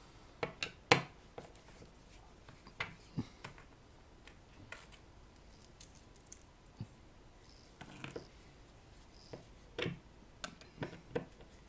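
Scattered small clicks and metallic taps as screws are taken out of a vintage speaker cabinet's back panel and set down on it.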